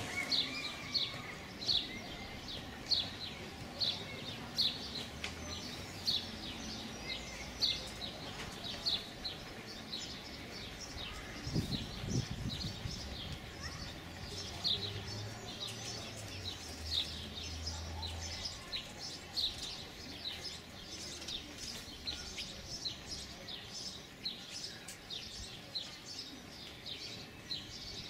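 A small bird chirping over and over, short high chirps about one to two a second, over faint outdoor background noise.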